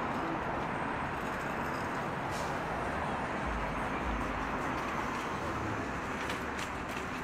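Busy market-street ambience: a steady wash of crowd chatter and traffic, with a brief low rumble about halfway through and a few faint clicks near the end.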